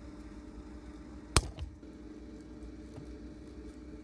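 A sharp plastic click about a second and a half in, followed quickly by a smaller one, as the white locking clip on the yellow airbag connector is released and the plug is pulled free. A steady low hum runs underneath.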